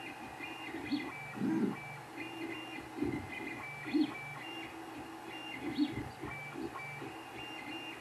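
Creality 3D printer at work: its stepper motors give short, pitched tones that change in quick, repeating patterns as the print head and bed move.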